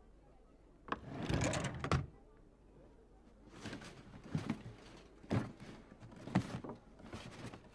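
Rustling and light knocks of belongings being rummaged through and handled. One rustle of about a second comes near the start, then a run of short rustles and soft knocks.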